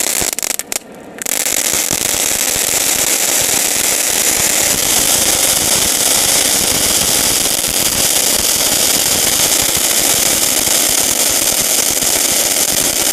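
A 'Power Point' spark-jet firework spraying sparks with a dense crackling hiss. It sputters in fits for about a second, then settles into a steady crackle.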